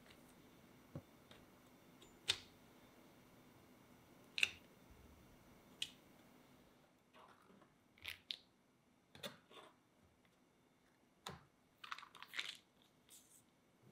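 Scattered light clicks and taps of a steel ruler and a chef's knife being set down on and drawn across a rolled chocolate cookie sheet on parchment paper, with a short cluster of scraping taps near the end.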